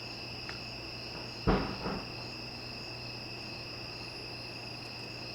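A steady chorus of crickets: a continuous, even high-pitched trilling. A single brief knock comes about a second and a half in.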